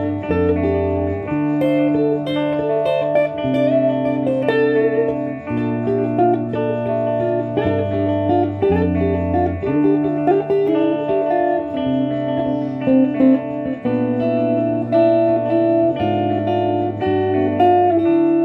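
Two guitars played together: a low line of held notes changing about every second under a picked melody and chords.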